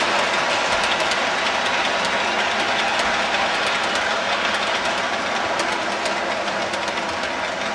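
Long O-gauge model grain train of plastic two-bay hopper cars rolling past on the track: a steady rolling rumble with many small irregular clicks as the wheels cross the rail joints, fading slightly.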